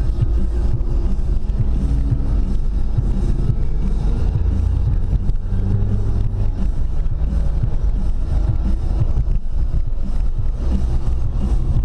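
Car engine and tyre rumble heard inside the cabin while driving on a winding road: a steady low drone, with the engine note rising and growing stronger for a few seconds in the middle.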